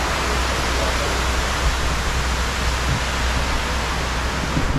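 Steady rush of water cascading down the stone walls of a 9/11 Memorial reflecting pool, heard as a dense, even hiss with no breaks.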